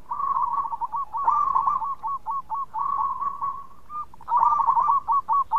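Zebra dove (perkutut) singing its cooing song. A quick run of short coos gives way to a string of separate staccato notes, and about four seconds in a second phrase starts the same way.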